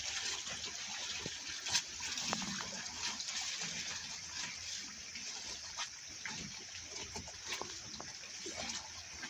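Running water making a steady hiss, with small splashes and ticks scattered through it.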